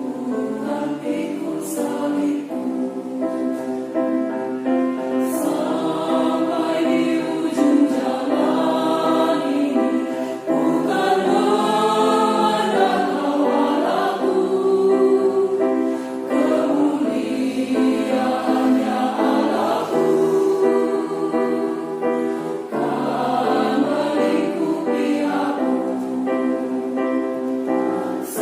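A choir singing in parts, sustained chord-based singing throughout.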